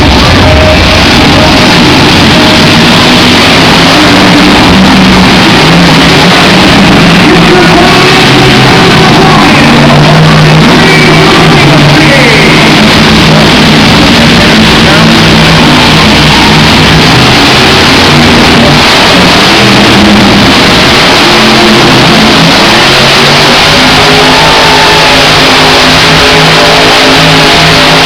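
Loud rock music over the arena PA mixed with the Grave Digger monster truck's supercharged V8 engine revving as it drives and spins donuts. The recording is overloaded and stays at full loudness throughout.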